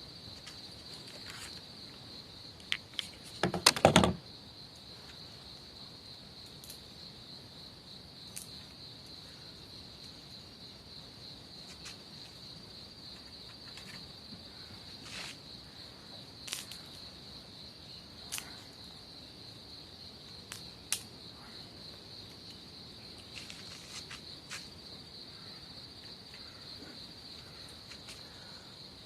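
Insects chirring steadily in one high band, with scattered sharp clicks throughout and a brief, louder clatter of knocks about three to four seconds in.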